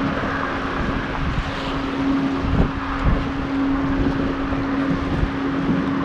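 A steady engine hum, with wind buffeting the microphone.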